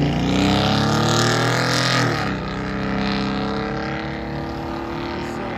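A 6.2L V8 with true dual exhaust and Black Widow Race Venom mufflers accelerates hard as the truck drives away. The engine note climbs, drops sharply about two seconds in at an upshift, then climbs again more slowly as it fades into the distance.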